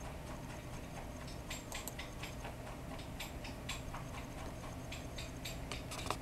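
Irregular light clicks, a few a second, starting about a second and a half in over a steady low hum, with one sharper click near the end.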